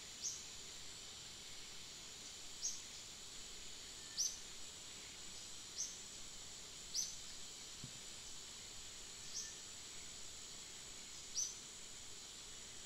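Steady high insect drone, with a short, high, falling chirp repeated every one to two seconds, seven times in all.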